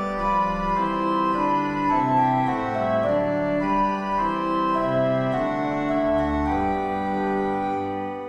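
Organ music: slow, held chords that change every second or so, with a short break near the end.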